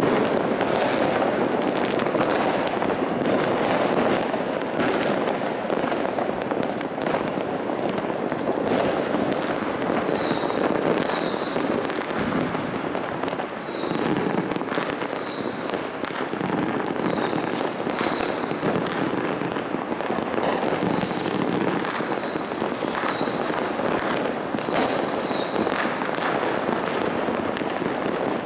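Mass New Year's fireworks: a dense, continuous barrage of bangs and crackles with no let-up. From about a third of the way in, short high falling whistles come through the barrage again and again.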